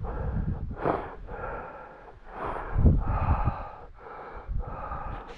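A hillwalker breathing hard, a breath in or out about once a second, while wind buffets the microphone in rumbling gusts, the strongest a little under halfway.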